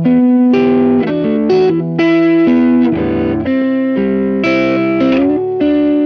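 Squier Stratocaster electric guitar played through a Kokko overdrive pedal into a Peavey BackStage Plus amp, a run of picked notes and chords changing about every half second, with the last chord left to ring out near the end.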